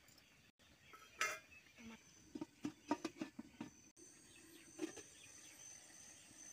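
Steel spatula and lid clinking and knocking against a steel kadai while curry cooks. The taps are short and scattered, with a quick run of them between about two and four seconds in.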